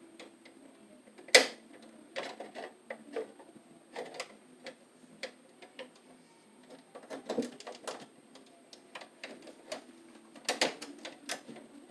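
Irregular clicks, taps and scrapes of hands working wire and tools inside a metal breaker panel. The sharpest click comes about a second and a half in, and the clicks bunch up near the end.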